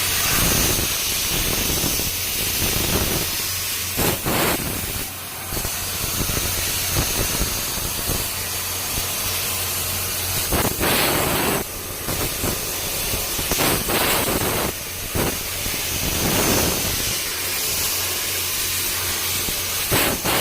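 CNC laser cutter cutting 4 mm brass plate: a steady hiss of assist gas jetting from the cutting nozzle over a low machine hum. The hiss swells briefly several times.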